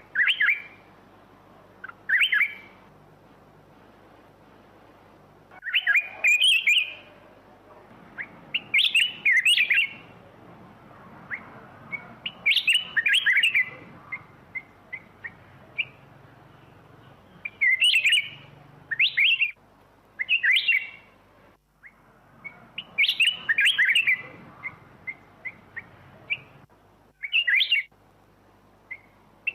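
Black-crested bulbul singing: short phrases of quick, clear chirping notes, about ten in all, coming every two to four seconds with single short notes scattered between them.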